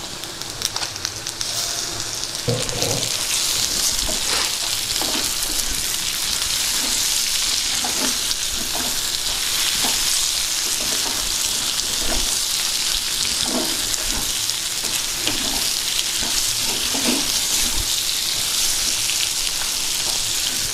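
Raw prawns sizzling as they fry in hot oil with onions and ginger-garlic paste. The sizzle swells about two seconds in and then holds steady, with short scrapes every second or two as the pan is stirred.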